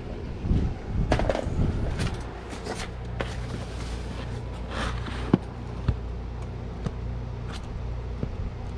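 Comic books in plastic bags being flipped through while searching a stock box: rustling and light taps, then a few isolated sharp ticks, over a steady low hum.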